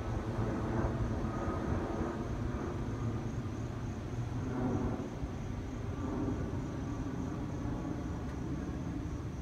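Four-engine jet airliner passing high overhead: a steady low engine rumble that fades slightly near the end.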